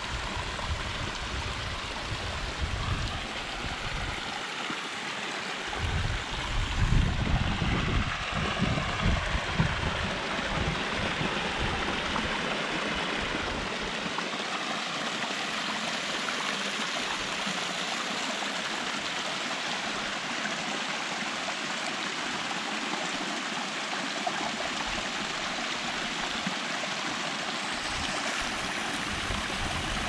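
Small mountain stream cascading in thin falls down rock slabs into a shallow pool: a steady rushing splash of water. There is irregular low buffeting over the first ten seconds or so, loudest about seven to ten seconds in.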